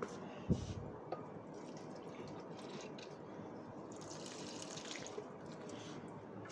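Water poured from a small watering container onto the soil of a potted houseplant, trickling and dripping, with a soft thump about half a second in and a hissier pour around four seconds in.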